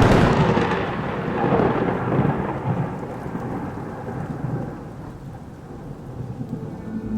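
A thunderclap: a sudden loud crack followed by a long rolling rumble that slowly fades over several seconds.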